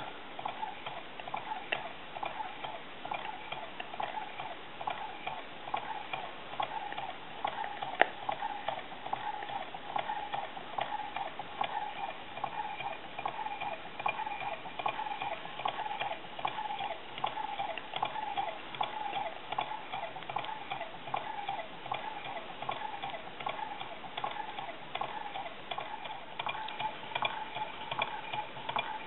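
Small home-built Stirling hot-air beam engine running on a spirit flame, its linkages and hard-disk flywheel giving a steady, rhythmic light ticking with each turn, with one sharper click about 8 seconds in.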